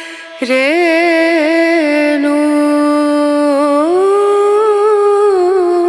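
A young child singing long held notes in a wavering voice, the pitch rising to a higher held note about four seconds in.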